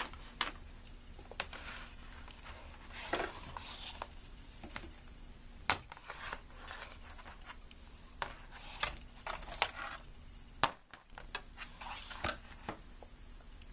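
Handling noise from a new transmission shift cable being turned over in the hands: scattered light clicks, rubbing and rustling.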